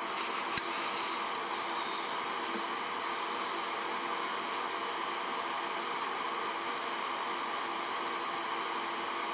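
Hot-air heat gun running steadily, blowing onto a circuit board to melt the solder holding a push button for removal, with a single click just after it starts.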